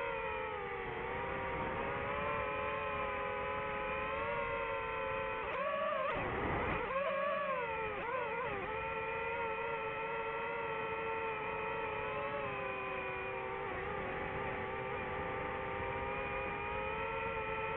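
DJI FPV drone's electric motors and propellers whining steadily in flight, the pitch dipping and wavering with a rougher rush about six to eight seconds in as the throttle changes.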